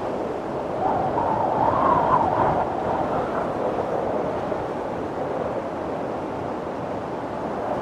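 Wind blowing steadily with a faint wavering whistle that rises and falls. It gusts a little stronger about a second in.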